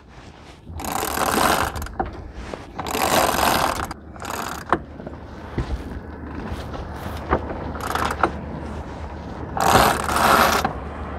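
Jib sheet hauled in around a sailboat's self-tailing winch in several pulls of about a second each, the winch ratchet clicking, with a few sharp clicks in between, as the roller-furling jib is unrolled.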